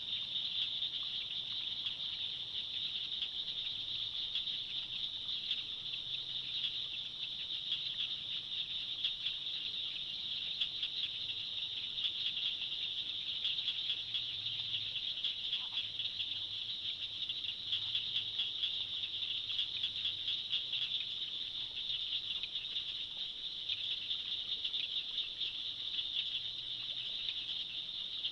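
Steady, high-pitched swamp chorus of many small calling animals: a dense trill of rapid pulses.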